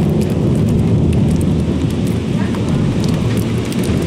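Heavy rain pouring down in a loud, steady rush, with scattered sharper drop hits.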